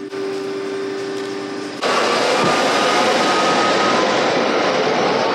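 Car wash machinery: a steady hum heard from inside the car, then, after a sudden cut, a louder steady rushing noise with a faint whistling tone in it.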